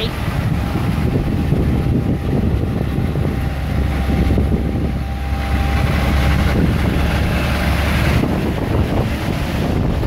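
Diesel semi-truck engine rumbling as the truck pulls out and drives past close by, the deep rumble swelling from about a third of the way in. A thin steady tone runs under it, and wind buffets the microphone.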